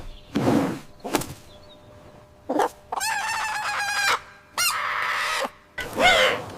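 Chickens clucking and squawking in a few short, separate calls, with brief noisy rushes between them.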